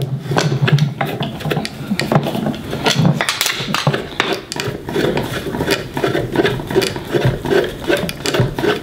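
Metal floor-lamp pole section being screwed by hand onto the next section: the threaded joint and the hand on the tube give a quick, irregular run of short scrapes and clicks.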